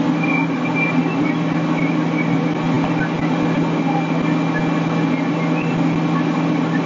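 Fire ladder truck's engine running steadily at a constant speed, a deep even drone.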